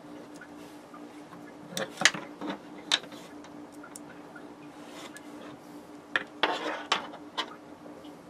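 Small hard parts being handled: scattered sharp clicks and clinks in a few short clusters, about two seconds in, at three seconds and again near the end, over a steady low hum.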